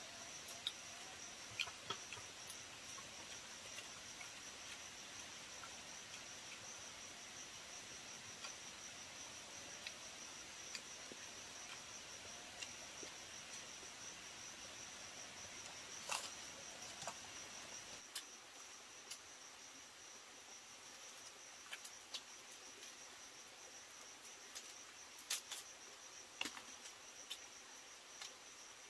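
Faint, steady high-pitched insect chirring, with scattered sharp clicks and taps over it, the loudest about halfway through and near the end.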